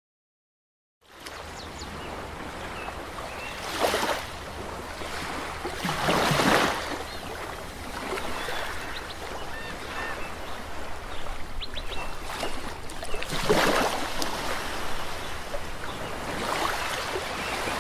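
Ocean surf on a beach: a steady wash with waves swelling and breaking several times, starting after about a second of silence.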